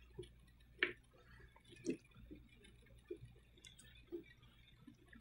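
Faint, scattered light clicks and taps, about one a second, as the orange expulsion plate is slid onto the valve plate of a clear prosthetic socket and turned to line up its four-hole pattern.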